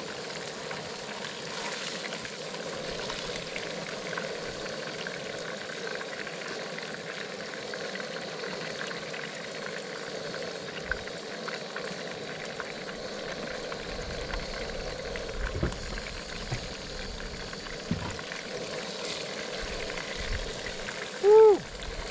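Pieces of white bass deep-frying in a pan of hot oil, a steady sizzle, with a few faint clicks of the tongs. A short loud pitched sound comes near the end.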